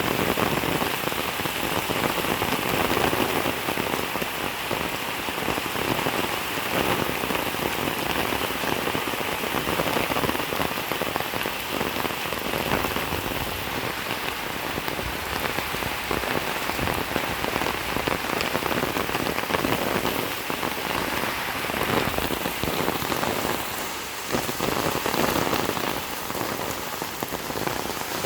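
Steady rain falling on a hard surface, a dense even hiss with many fine drop ticks.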